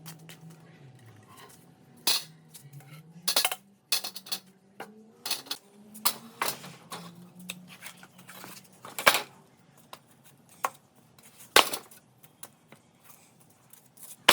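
Irregular sharp knocks and clinks of hard objects being handled, a dozen or so, with a faint low wavering tone underneath.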